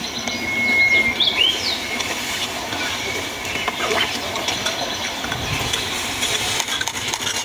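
Giant panda chewing and crunching bamboo stalks, a crackly, steady noise under a background hiss. About a second in there are a few short, high whistled chirps.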